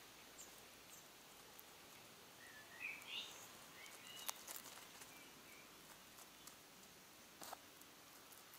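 Faint wet clicks and smacks of a European hedgehog chewing and licking cheese, over quiet outdoor background hiss, with a short chirp about three seconds in.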